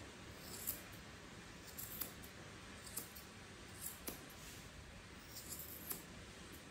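Grooming scissors snipping the fur of a cocker spaniel's hind paw. The cuts are short and crisp, at an uneven pace of about one or two a second.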